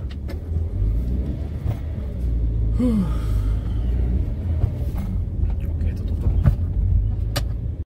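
Steady low rumble of a car's engine and road noise heard inside the cabin, with a few faint clicks.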